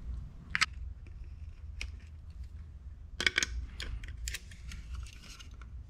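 Small clicks and scrapes of a screwdriver and wires being worked onto the terminal screws of a garage door opener's plastic wall push-button control, with a quick cluster of clicks about three seconds in, over a low steady hum.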